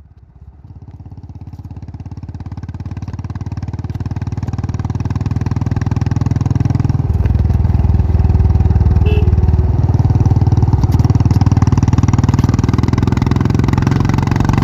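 Royal Enfield motorcycle's single-cylinder engine running as the bike rides toward the camera. The rapid, even exhaust beat grows steadily louder over the first several seconds and then holds close and loud. Its note shifts about halfway through.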